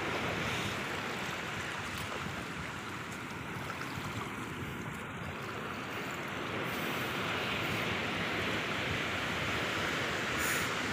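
Steady rush of a shallow river's flowing water, an even hiss with no distinct splashes.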